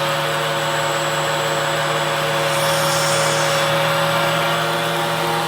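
Hoover vacuum cleaner running steadily, a motor hum with steady whining tones, with a brief airy hiss about two and a half seconds in. The vacuum is losing suction, which the owner puts down to a clog in the filter or hose.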